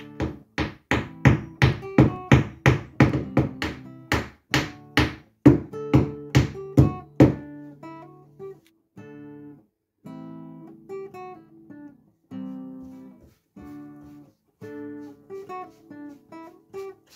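Hammer tapping small glued hardwood dowels into drilled holes in an oak kayak cockpit rim: a quick run of sharp taps, about three a second, stopping about seven seconds in. Acoustic guitar music plays under the taps and carries on alone after them.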